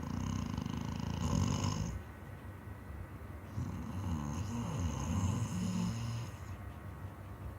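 A sleeping person snoring heavily, two long snores: one in the first two seconds, then another from about three and a half seconds in with a wavering, buzzing pitch.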